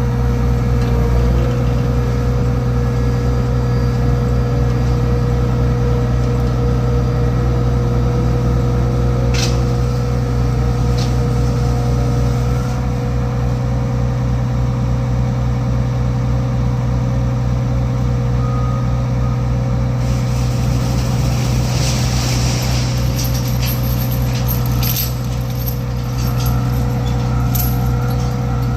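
Heavy construction machinery engine running steadily with a deep drone and a steady whine, with a few sharp metallic clicks and, in the last third, a run of clanks and rattles.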